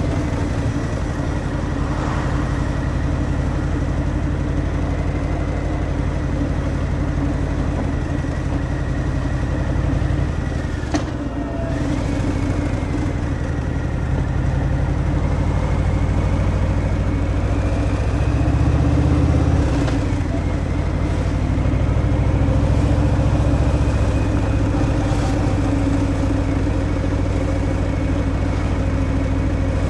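Harley-Davidson Fat Boy's Milwaukee-Eight 114 V-twin running under way through its stock exhaust. About eleven seconds in it briefly drops off with a click, and later it pulls louder twice.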